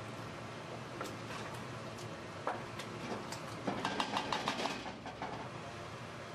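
Wooden spoon stirring minced meat, tomatoes and spices in a stainless steel pot over a steady frying hiss, with scattered scrapes and knocks against the pot and a quick run of clicks about four seconds in.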